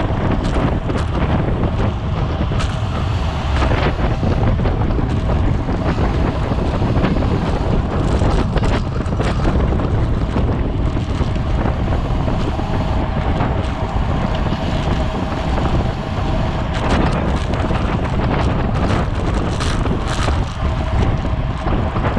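Wind rushing over the microphone of a camera riding on a racing bicycle, a loud steady roar with a faint constant hum underneath and a few brief ticks.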